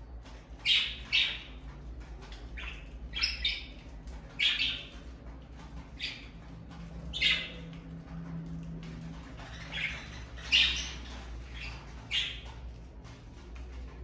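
Budgerigars calling: about a dozen short, loud calls at irregular intervals, over a low steady hum.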